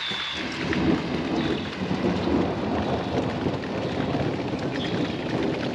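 Thunderstorm: steady heavy rain with a low rolling rumble of thunder.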